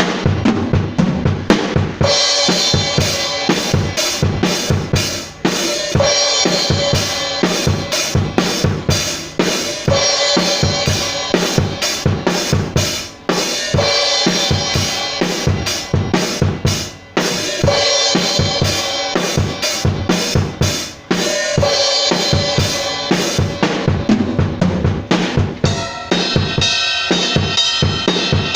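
A drum kit played in a steady repeating beat of kick, snare and cymbals, with a few short breaks between phrases.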